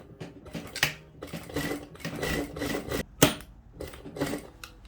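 Sewing machine stitching through denim in short runs, a second line of topstitching along a jeans zipper, with a couple of sharp clicks in between.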